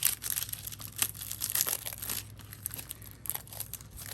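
Plastic shrink-wrap crinkling and tearing in quick, irregular crackles as it is pulled off a Blu-ray case.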